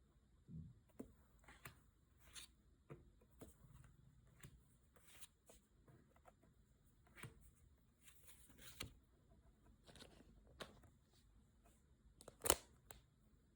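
Quiet handling of Pokémon trading cards and their packaging: soft, scattered rustles and light clicks, with one sharper tap near the end.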